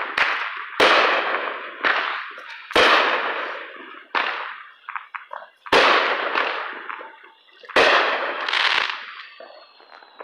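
Aerial fireworks going off: about seven sharp bangs, one every second or two, each trailing off in a crackling hiss of sparks. A faint falling whistle comes near the end.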